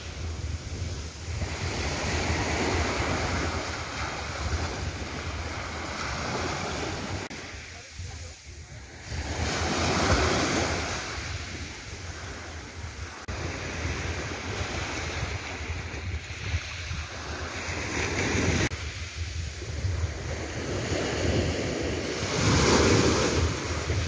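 Small sea waves breaking and washing up a coarse sandy beach, the surf swelling and fading every few seconds, with a low wind rumble on the microphone.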